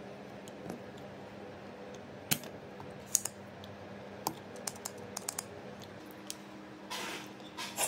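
Scattered light clicks and a few sharper snaps from hand tools working a ceiling fan's circuit board, a soldering iron and a plunger-style solder sucker pressed to the solder joints while desoldering. Near the end come two short scraping rustles as the board is handled on newspaper.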